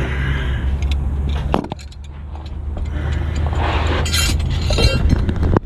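Metal clinks and clatter of hand tools and fittings over a steady low hum.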